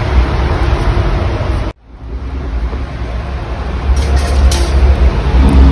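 Steady outdoor background noise, a heavy low rumble with hiss above it. It cuts off abruptly a little under two seconds in and swells back up over the next few seconds.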